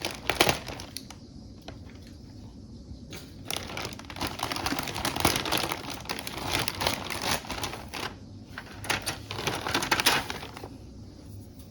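Plastic wrapping crinkling with irregular clicks as it is cut open with a blade and handled, in several spells with short pauses between.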